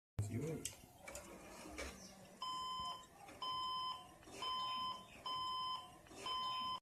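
HP desktop computer's system beeper sounding five steady half-second beeps at startup, about one a second, after a few clicks and a thump. This is the 5-beep POST error with no display, which the narrator ties to the RAM or its socket and cures by reseating the RAM.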